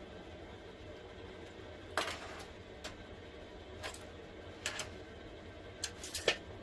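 Steel tape measure being pulled out and held against a wooden cabinet panel: a handful of light, scattered clicks and ticks over a low steady hum.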